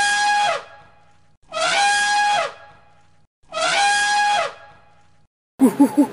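Elephant trumpeting: three identical loud, brassy trumpet calls of about a second each, roughly two seconds apart. Near the end a quick run of short, rising animal calls begins.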